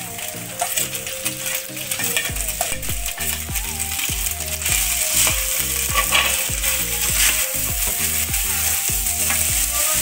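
Leftover cooked rice sizzling as it fries in oil in a kadai over high heat. A steel spoon scrapes chopped coriander off a plate into the pan, then stirs and scrapes through the rice. The sizzle grows louder about halfway through.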